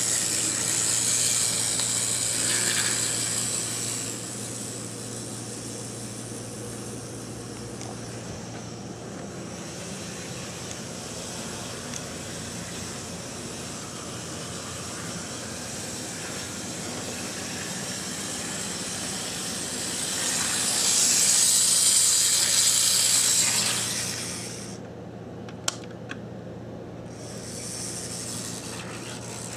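Brass HOn3 Porter 2-6-0 model steam locomotive running on its track, a steady electric motor and gear whir with a high hiss that swells twice as it passes close. A single sharp click comes about three-quarters of the way through.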